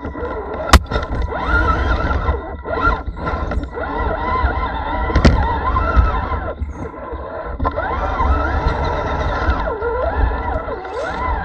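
Electric motor and gears of an RC scale crawler truck whining on board, the pitch rising and falling with the throttle over a steady high whine and low rumble. Two sharp knocks, one about a second in and one about five seconds in, as the truck strikes rock.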